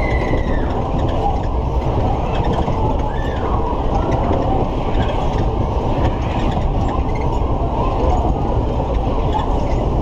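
Matterhorn fairground ride running at speed, its cars swinging round the undulating circular track: a steady, loud mechanical rumble.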